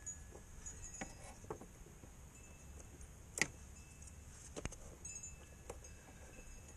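Scattered small metal clicks and clinks of bent needle-nose pliers working a hose clamp onto a hose, the sharpest click about three and a half seconds in.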